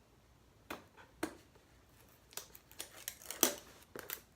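Packaging being handled during an unboxing: scattered rustles and sharp clicks, more frequent in the second half, the loudest about three and a half seconds in.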